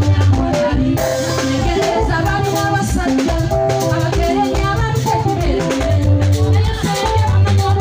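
Live band music over a PA: a woman singing into a microphone over a steady drum and bass beat with electric guitar.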